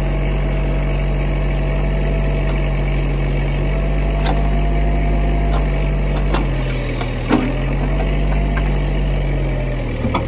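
Bobcat backhoe running and digging at a tree stump: a steady engine drone with a steady whine over it, a few light clicks, and one sharp knock a little over seven seconds in as the bucket works the stump and roots.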